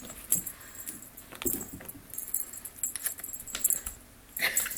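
A cat playing with a feather toy: light, irregular rustling, scratching and jingly clicks, with a louder burst near the end.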